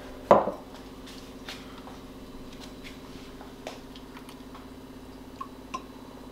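A drinking glass set down on a wooden worktop with one knock, then light clicks and taps as a plastic pen-style TDS meter is uncapped and handled, with two small clinks near the end as it goes to the glass. A steady low hum runs underneath.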